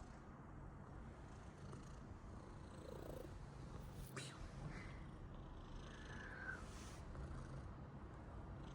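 Domestic cat purring steadily, with a single sharp click about four seconds in.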